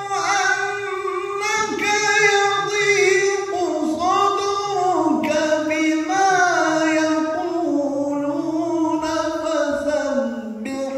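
Melodic Quran recitation (qira'at): a solo male reciter holds long, ornamented vowel notes in a high register, the pitch gliding and turning through a maqam between short breaks.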